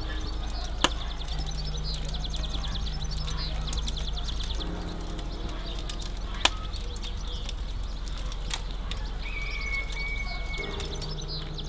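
Fast, high chirping runs on without a break over soft, sustained background music chords. A metal utensil clicks sharply against the pan about a second in and again about six and a half seconds in.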